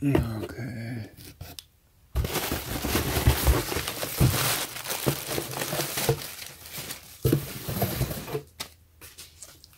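Plastic packing material crinkling and rustling as it is handled, a dense crackle lasting several seconds, starting about two seconds in and fading out near the end.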